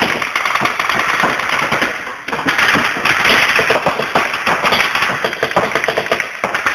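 Rapid reball marker fire: many shots a second, the reusable rubber balls smacking off inflatable bunkers and the floor, with a brief lull about two seconds in and the heaviest fire just after. The clatter echoes in a large sports hall.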